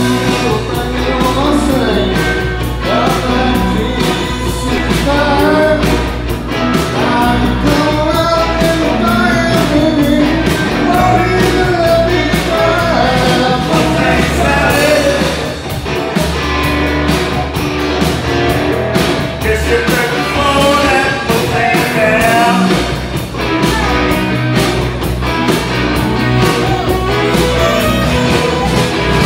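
Live band playing an upbeat rock-and-roll song, with electric guitars, bass and drum kit, and a man singing the lead into a handheld microphone.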